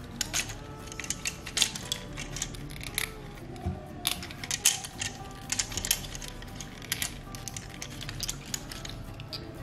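Hard plastic parts of an Optimus Prime Transformers figure clicking and snapping as they are folded and pressed into place by hand: many sharp clicks at irregular intervals, with a few louder snaps.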